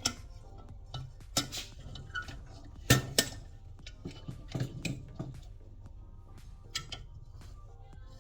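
Irregular metallic clinks and clicks of valve spring retainers, keepers and a G-clamp valve spring compressor being worked on an LS cylinder head while the valve springs are released, the loudest clink about three seconds in.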